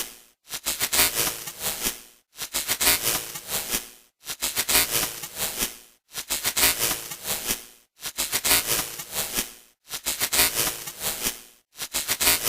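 Broken-TV error sound effect: bursts of crackling, static-like noise, each about a second and a half long, cut off by short silences and repeating about every two seconds.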